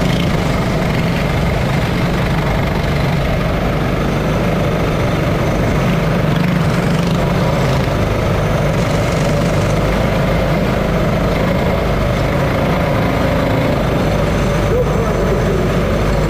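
Go-kart engines running loud and steady, heard from on board a kart close to its own engine, with other karts' engines around it. Near the end the engine note changes as the karts slow to a stop.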